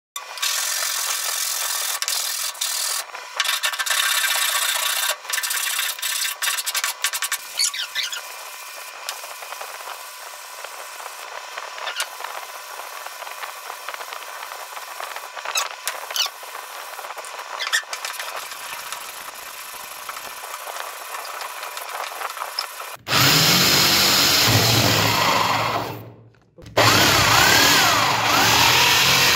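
A wooden box rubbed back and forth on a sheet of sandpaper laid flat, giving an uneven, scratchy rasp. About 23 seconds in, a drill fitted with a hole saw starts cutting a round hole through the box's wooden side, much louder than the sanding; it stops for a moment and starts again near the end.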